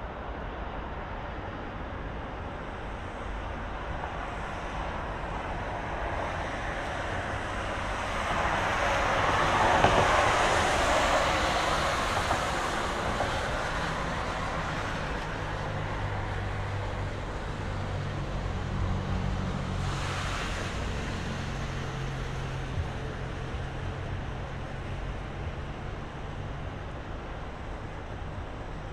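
City traffic noise from a riverside road, swelling as a vehicle passes close about ten seconds in. A low, steady engine hum joins about halfway through.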